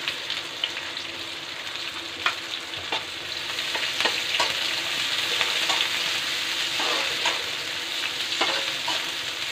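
Chopped onion sizzling in hot oil in a kadhai on high flame, stirred with a metal spatula that scrapes and clicks against the pan every second or so. The sizzle grows louder about four seconds in.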